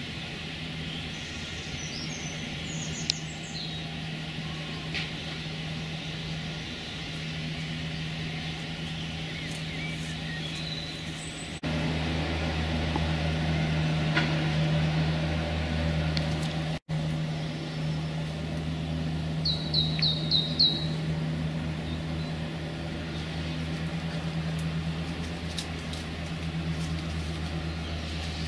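Urban garden ambience: a steady low hum of distant traffic with scattered songbird chirps, including a quick run of five high chirps about twenty seconds in.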